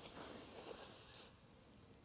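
A faint rustle that stops a little over a second in.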